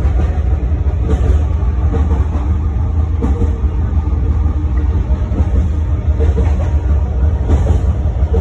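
SkyTrain car running at speed, heard from inside the car: a steady low rumble of wheels on rail, with a few faint clicks.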